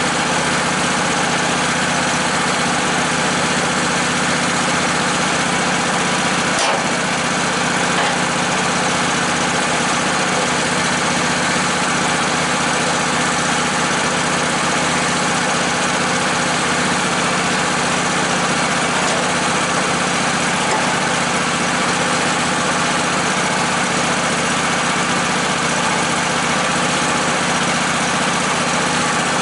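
Sawmill engine running steadily, with one sharp click about seven seconds in.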